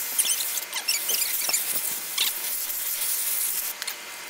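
Water from a garden hose spraying onto a dog's wet coat and the cobblestones during the rinse of a shampoo bath, a steady hiss that drops off near the end. A few short high chirps sound over it.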